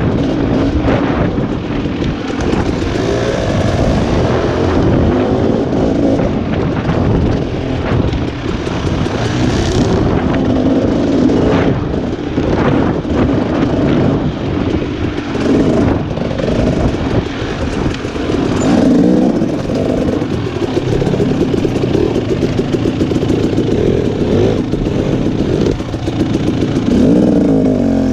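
Husqvarna enduro dirt bike engine revving up and down continuously while ridden along a rough trail, with scattered knocks and clatter from the bike over the bumpy ground.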